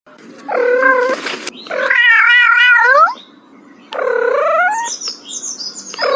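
Domestic cat yowling: a run of long, drawn-out meows, the second one wavering up and down, with another call starting near the end.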